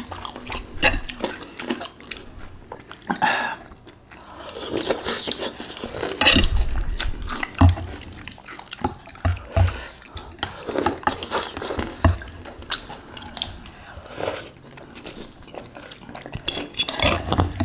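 Metal fork and spoon clinking and scraping against a glass baking dish while scooping broth, with soft splashes of soup and eating sounds between scattered clicks.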